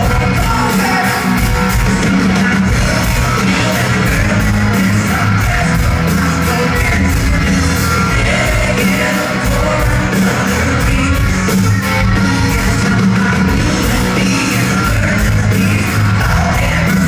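Live country-rock band playing at full volume: drum kit, electric guitars and bass, with a male lead singer. Heard from the audience, with the spread of a large hall.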